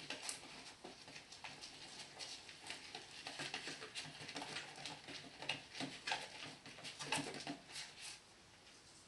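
Sticky slime being stirred and worked as it forms after activator is added. It makes a string of small, irregular wet clicks and squelches that die away about 8 seconds in.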